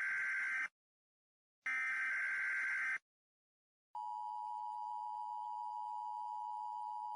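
Emergency Alert System SAME header: two buzzy digital data bursts about a second long, a second apart. About four seconds in, the steady two-tone EAS attention signal begins.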